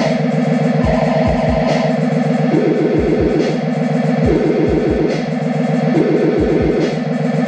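Electronic music played live on a keyboard synthesizer and a drum machine: a repeating synth riff over a steady kick-drum beat.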